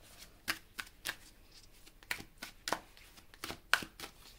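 Tarot cards being handled by hand: a string of short, crisp card snaps and taps at an uneven pace, about two a second.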